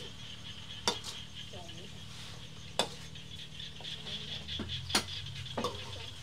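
Metal ladle stirring and scraping food in a wok, with a handful of sharp clinks of metal on metal spread unevenly through the stir-frying.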